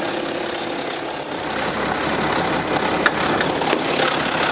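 BMW X3 30d's N57 3.0-litre six-cylinder diesel idling with a periodic rattling from the timing chain, which the mechanic judges to be a stretched chain striking its guides.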